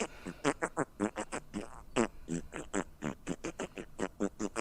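A man's voice making a fast stream of short nonsense syllables, about five a second, mimicking someone talking. The sound is nasal and animal-like, close to quacking or oinking.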